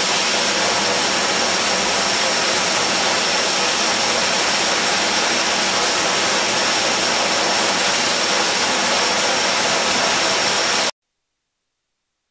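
Rotary bottle filler running at speed: a loud, steady hiss with a thin high whine on top. It cuts off suddenly near the end.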